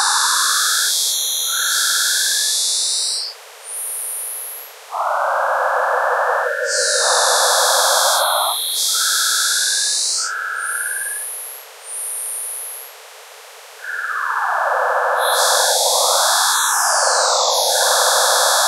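Harsh synthetic buzzing noise made to draw a hidden picture: in a spectrogram it spells map coordinates ("…18′ 0″ N", "…7′ 0″ W"). It dips in loudness several times, about 3, 5, 10, 12 and 13 seconds in.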